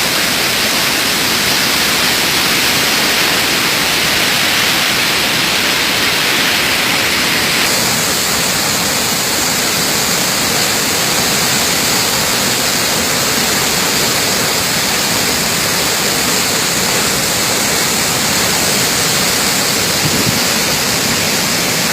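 Waterfall in flood: a loud, steady rush of falling water, its tone shifting slightly about eight seconds in.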